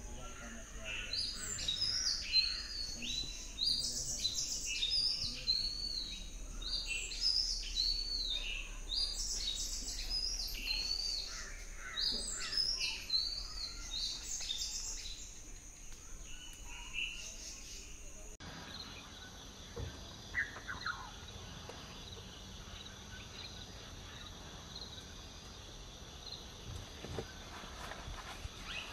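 Many birds chirping and calling in quick, overlapping high notes. About eighteen seconds in it cuts abruptly to a quieter forest background with only a few scattered calls.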